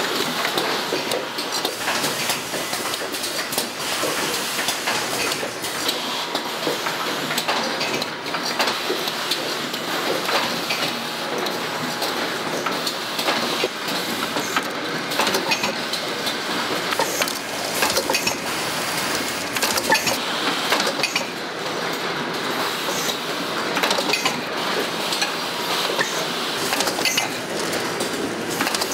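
Oil filter production-line machinery running with a dense, continuous clatter of overlapping knocks and rattles.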